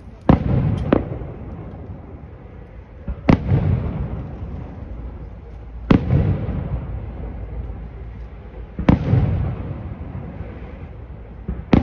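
Aerial firework shells bursting in a daytime display. There are six loud bangs: two in quick succession at the start, then about one every three seconds. Each trails off in a rolling echo.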